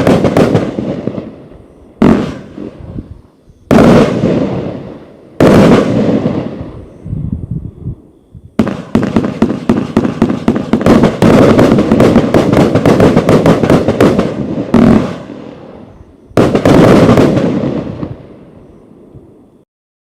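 A 101-shot, 30 mm firework cake firing. Single loud bangs come every couple of seconds, each ringing out, then a rapid barrage of many shots runs for about six seconds. Two more bangs follow, and the last one echoes away before the sound cuts off.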